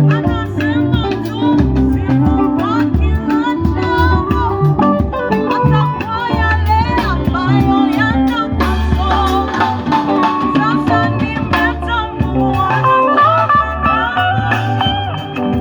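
A gospel band playing: a singing voice over guitar, bass and drums, with a steady beat.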